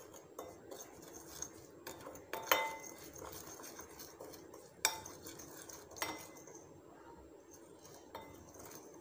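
Steel spoon stirring a ghee-and-spice paste in a small glass bowl, scraping and tapping against the glass, with a few sharper clinks; the loudest, about two and a half seconds in, leaves the glass ringing briefly.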